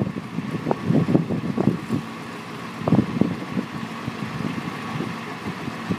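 Truck engine running steadily under irregular gusts of wind buffeting the microphone, with a faint steady whine.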